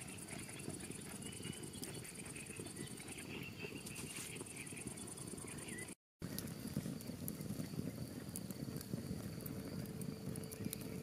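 Evening insects chirring steadily at a high pitch over a wood campfire crackling with sharp pops. The sound drops out completely for a moment about halfway.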